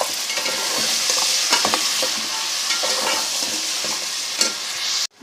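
Meat bones frying in hot oil and spice masala, sizzling steadily as they are stirred, with scattered clicks of the utensil against the pot; it cuts off abruptly near the end.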